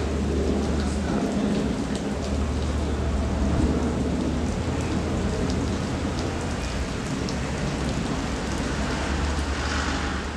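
Steady broad roar of a Boeing 777-200ER's Rolls-Royce Trent engines as the airliner passes overhead on approach, heard from the ground as a rumbling jet noise.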